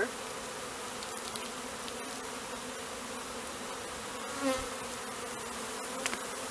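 Many honeybees flying and buzzing in a steady drone, briefly louder about four and a half seconds in.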